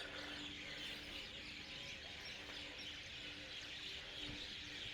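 Many small birds chirping and twittering together in a steady, dense chorus.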